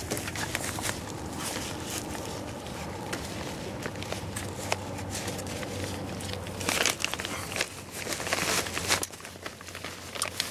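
Wiggle wire being pressed by hand into a metal lock channel over greenhouse plastic: scattered clicks and scrapes of the zigzag wire, and crinkling of the plastic sheet, with louder rustling bursts about seven and nine seconds in.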